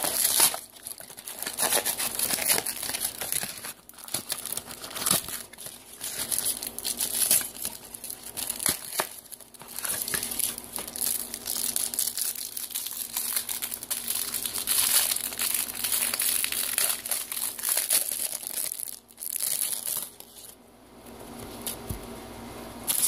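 Cardboard trading-card box being torn open and the clear plastic wrap around the cards crinkled, a dense run of tearing and crinkling that eases off about twenty seconds in.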